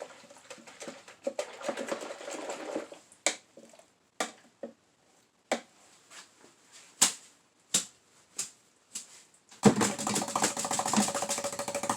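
An oil-painting brush being cleaned: about three seconds of swishing scrubbing, then a handful of separate knocks. From about ten seconds in comes a fast, dense run of rapid strikes as the brush is beaten to shake it out.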